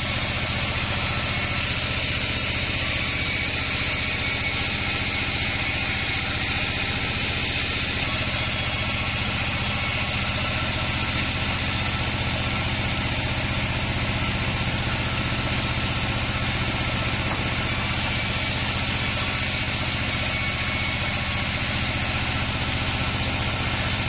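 A 36-inch band sawmill running steadily as its blade rips a randu (kapok) log into boards, a low hum under a steady hiss.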